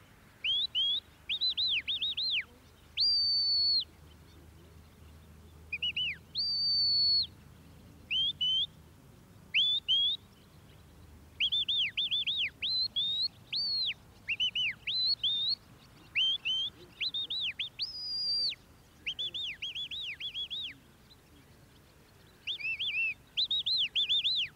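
Sheepdog handler's whistle commands to a working Border Collie: a string of high whistled calls, some held notes that slide down at the end and others quick rising-and-falling notes in short groups, with brief pauses between.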